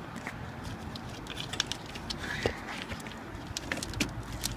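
Scattered light clicks, small knocks and rustling from hands working at taped wiring and a clip in the engine bay.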